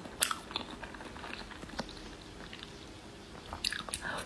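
Soft mouth clicks and chewing of a squeeze-pack enzyme jelly, with a short cluster of clicks near the end as the jelly stick goes back to the lips.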